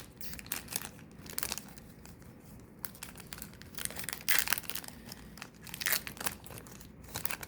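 Foil wrapper of a 2025 Bowman baseball card pack crinkling and tearing as it is opened by hand. The crackling is irregular, with louder crinkles about four and six seconds in.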